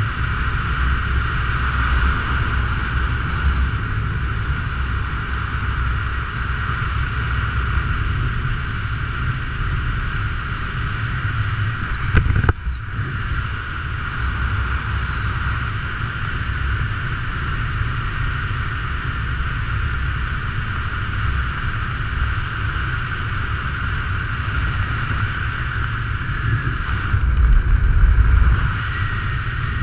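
Wind rushing over a skydiver's camera microphone during descent under an open parachute canopy, steady throughout. There is a sharp click about twelve seconds in, and louder buffeting for a second or so near the end.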